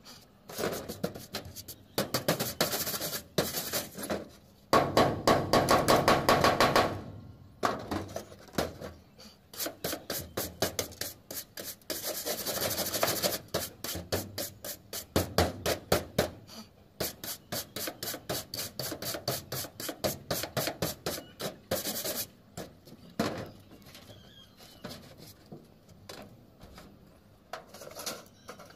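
Hand wire brush scrubbed back and forth over a rusted seam of a painted corrugated metal roof sheet, scouring off rust. It comes as spells of quick strokes with short pauses and is loudest about five to seven seconds in.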